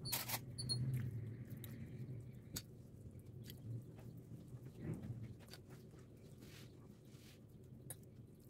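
Faint soft handling sounds of damp cooked spinach being picked up, pressed and spread onto a puff-pastry tart base, with scattered small clicks and taps of a fork against a plastic tray. There is a short hiss right at the start.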